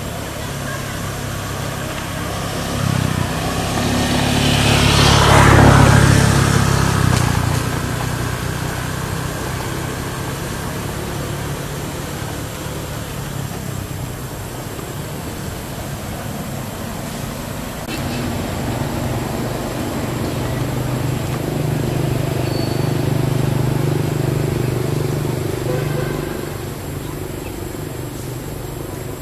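A motor vehicle passes: its engine grows louder to a peak about five seconds in, then fades away. Later another engine hums steadily for several seconds before dropping off near the end.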